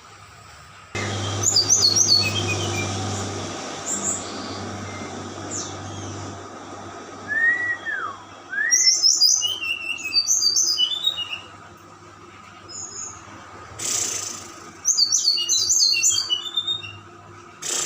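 Small songbirds chirping and twittering in quick bursts of high notes, with a couple of whistled rising-and-falling notes about halfway through, over a steady low hum that starts abruptly about a second in.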